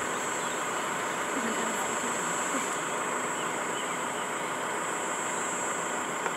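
Steady hum of an idling vehicle engine, with a steady high-pitched whine over it.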